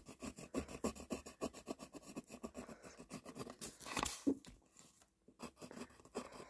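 Pencil scratching on paper in quick, irregular strokes while sketching, with a slightly louder stroke about four seconds in and a short pause after it.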